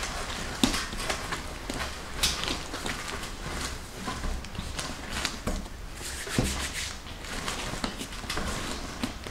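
Irregular knocks and soft thumps of mantou dough being kneaded hard by hand on a board, a few sharper raps among duller presses.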